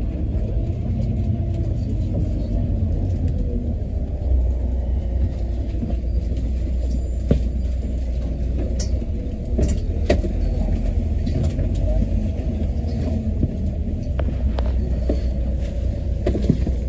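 Inside a Volvo B9TL double-decker bus with the engine running: a steady low rumble, with scattered light rattles and knocks from the interior fittings.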